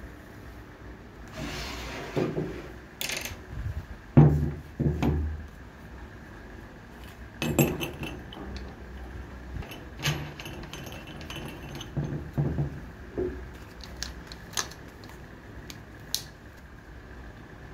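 Metal clinks and knocks of a toothed wood-carving disc and its flange being handled and fitted onto an angle grinder's spindle, with the grinder set down and moved on a wooden bench. The knocks come irregularly, the loudest about four seconds in; the grinder is not running.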